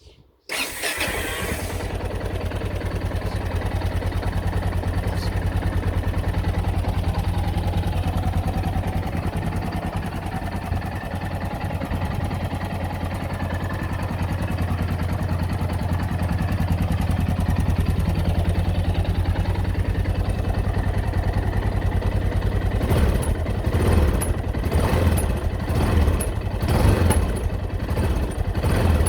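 Yamaha XT660Z Ténéré's 660 cc single-cylinder engine starting about half a second in, then idling steadily with a knocking sound that the owner reports as a fault. For the last few seconds it runs unevenly, with irregular louder bursts.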